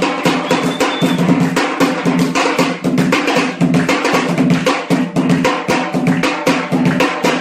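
Traditional drums (tabl) beaten in a fast, dense rhythm for a dance.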